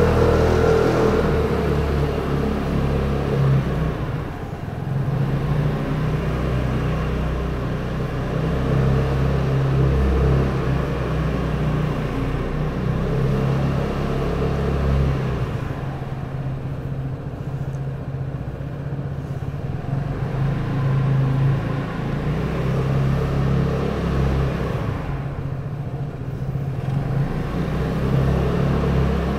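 Vespa GTS 300 scooter's single-cylinder four-stroke engine running under way, its note shifting a few times as the throttle opens and eases off, heard from the rider's seat inside an underground parking garage.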